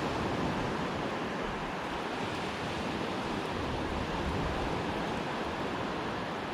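Surf washing onto the beach: a steady rushing hiss of breaking waves.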